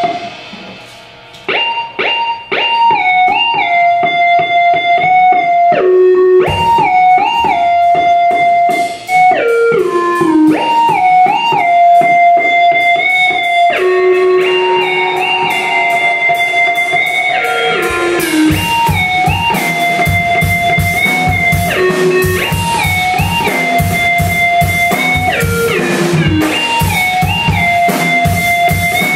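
Live rock band: an electric guitar repeats a short sliding riff over a drum kit. The music drops away briefly about a second in, then comes back, and the drums get heavier about two-thirds of the way through.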